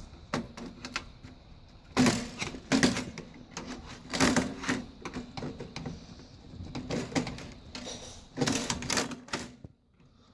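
Screwdriver prying and knocking at the steel and plastic parts inside a TV: irregular clicks and rattles, with louder clusters of knocks about two, three and four and a half seconds in and again near the end.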